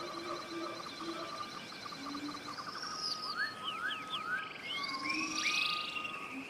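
Several wild birds singing together in forest: overlapping whistled notes that slur up and down, with quick trills.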